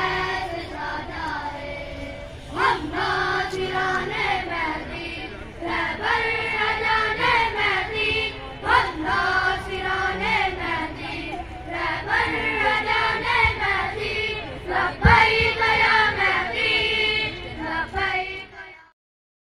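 A group of children singing together on stage, an Urdu song addressed to martyrs. There is a brief thump about fifteen seconds in, and the singing cuts off suddenly near the end.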